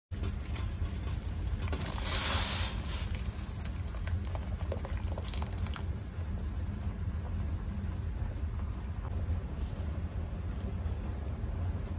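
Pot of sayur asem broth boiling, bubbling steadily, with a brief louder hiss about two seconds in and scattered light clicks.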